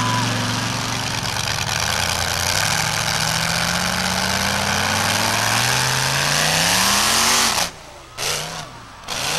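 Monster truck engine running steadily, then revving up in a long rising climb as the truck accelerates toward a jump over crushed cars. Near the end the engine note cuts off abruptly as the truck leaves the ground, followed by two short bursts of throttle.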